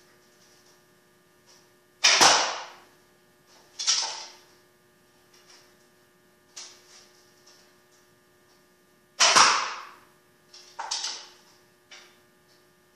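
A 50-pound ash self bow shot twice: each shot a sharp, loud crack of the string on release, followed less than two seconds later by a second, quieter sharp knock. A steady low electrical hum runs underneath.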